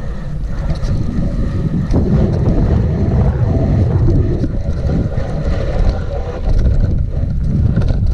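Wind buffeting an action camera's microphone: a loud, continuous low rumble.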